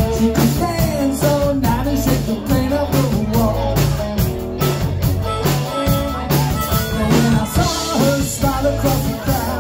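Live rock band playing: electric guitar, bass and a drum kit keeping a steady beat, with a sung vocal line over it.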